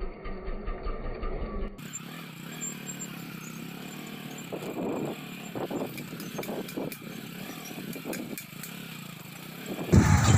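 Motorcycle ridden slowly along a potholed dirt lane, with knocks and rattles over the bumps. The engine becomes suddenly much louder near the end.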